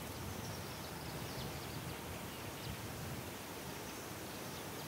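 Quiet outdoor natural ambience: a steady soft hiss with faint, short high chirps now and then.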